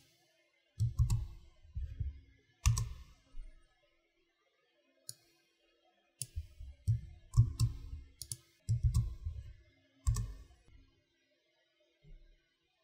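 Scattered clicks of a computer mouse and keyboard, in short clusters with pauses between them, as git commands are selected, copied and entered.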